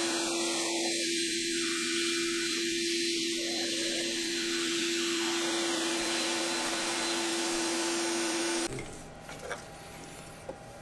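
Vacuum running with a steady hum as its hose nozzle sucks wood chips and dust off a freshly CNC-carved block. It shuts off abruptly about nine seconds in.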